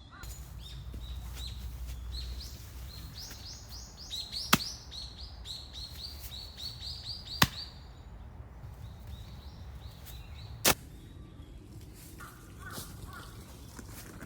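Small birds singing in quick runs of high repeated chirps, which die away after about eight seconds. Three sharp clicks stand out, and fainter, lower bird calls come in near the end.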